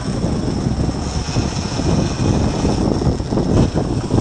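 Outboard engine of a fishing boat running at speed through rough sea, its drone mixed with gusty wind and rushing water.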